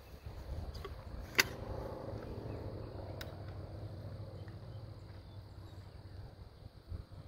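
Under-barrel 37 mm launcher being loaded and closed: one sharp click about a second and a half in, and a lighter click a couple of seconds later, over low wind rumble on the microphone.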